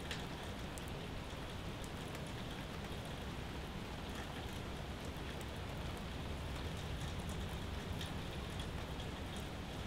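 Steady rain falling, with scattered sharp drop ticks.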